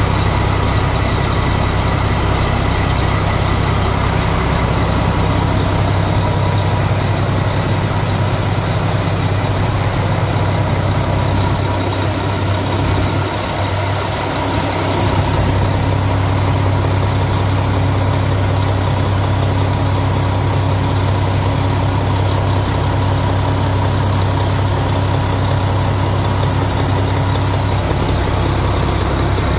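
1998 Mack E7-300 inline-six diesel engine running on a test stand at a steady, unchanging speed, with no revving.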